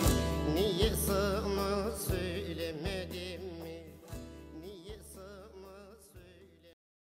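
Instrumental ending of a Turkish folk song (türkü) with bağlama, a wavering melody over bass and a few drum hits, fading out steadily and stopping into silence near the end.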